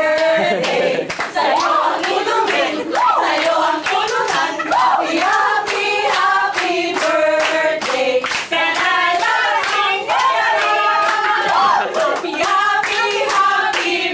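A group of voices singing together while clapping hands in a steady rhythm.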